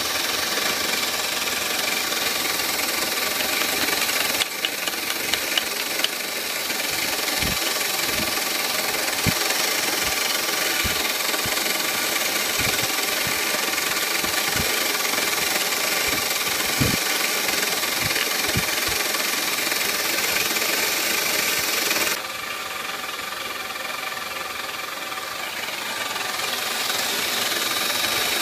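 CNC milling machine running, its spindle and end mill cutting a clear plastic block: a steady, loud machining whine and cutting hiss. Scattered low thumps come in the middle, and the sound drops a little about three quarters through.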